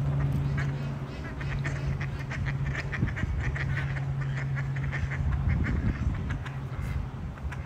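Ducks quacking, a long string of quick short calls, over a steady low hum.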